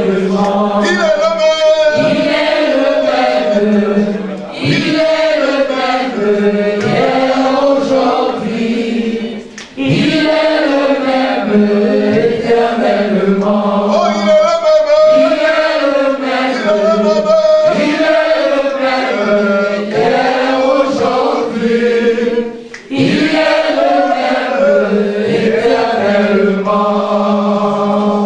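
Voices singing and chanting a slow worship chorus without instruments. The singing is continuous apart from short breaks about four and a half, nine and a half and twenty-three seconds in.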